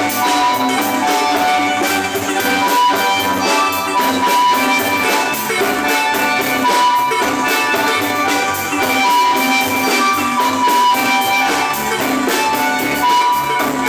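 Guatemalan marimba band playing a steady dance tune: quick mallet notes on the wooden keys over a moving bass line, with a drum kit's cymbals keeping an even beat.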